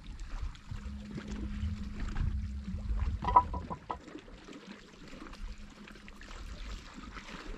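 Small waves lapping against a rocky lake shore, with a low rumble of wind on the microphone and a steady low hum for a couple of seconds. About three seconds in, a few quick high-pitched beeps.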